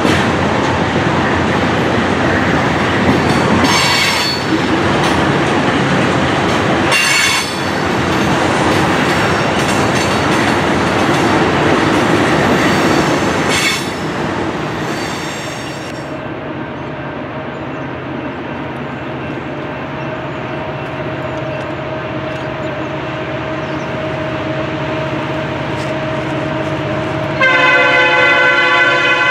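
Loaded ethanol tank cars rolling past on the rails with a steady rumble and clickety-clack, broken by three brief wheel squeals. Then a quieter distant rumble with a low steady drone of CN SD75I diesel locomotives approaching. Near the end the lead locomotive's Nathan P5 air horn sounds, loud, a chord of several tones.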